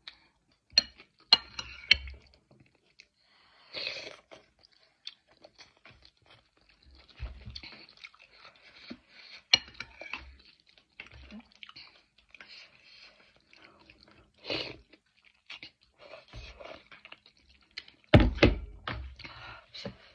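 A person chewing and crunching food close to the microphone, with scattered small clicks and mouth noises. A louder run of knocks comes near the end.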